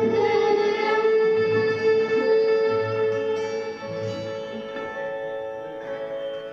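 Live folk music from a bhapang performance, with a plucked-string twang, ending on one long held note that slowly fades over the last few seconds.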